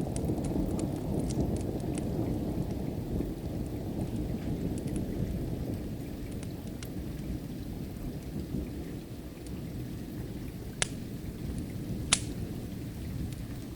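Low rumble of distant thunder slowly dying away under steady rain, with the sharp pops of a crackling wood fire scattered through it. Two louder pops come in the last few seconds.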